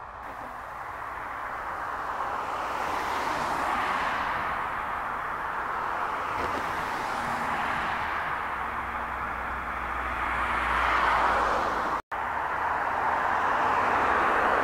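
ATR 42 twin-turboprop airliner's engines running at power as it rolls along the runway: a steady rushing roar that rises over the first few seconds and swells again later. About twelve seconds in it cuts abruptly to the roar of an Airbus A320-family jet's engines.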